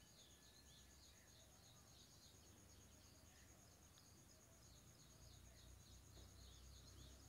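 Near silence: faint background room tone with soft, evenly repeated high chirps, about two a second, over a low hum.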